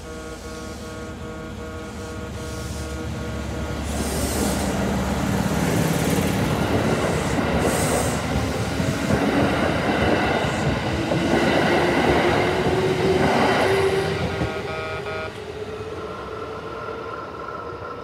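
Kintetsu 8600 series electric train pulling out of the station and accelerating past, its wheels and running gear rumbling loudly. A traction-motor tone rises in pitch as it gathers speed, then the noise fades as it moves away. A level-crossing alarm rings with pulsing electronic tones at the start, before the train grows loud, and again near the end.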